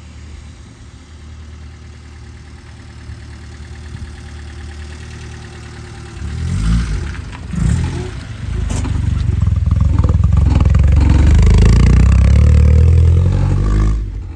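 Honda Civic EK hatchback engine heard from outside through an aftermarket HKS exhaust and headers. It runs with a low hum as the car approaches, gives two quick revs about seven seconds in, then holds a loud, deep exhaust drone until it cuts off at the end.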